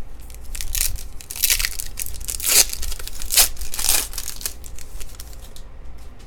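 The wrapper of a pack of baseball cards being torn open and crinkled, a run of crackly tearing and crumpling that is loudest in the middle and dies away to a few light rustles near the end.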